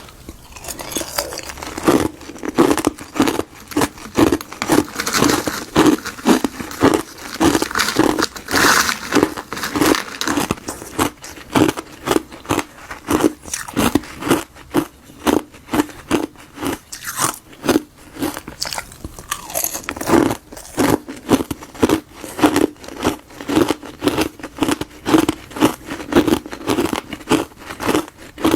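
Ice granules of frozen buckwheat-and-gardenia tea being bitten and chewed, a steady run of crisp crunches about twice a second.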